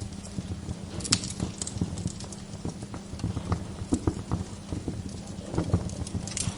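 Wood fire crackling in a fireplace: irregular pops and snaps over a steady low rumble, with a sharper pop about a second in and a cluster of crisp snaps near the end.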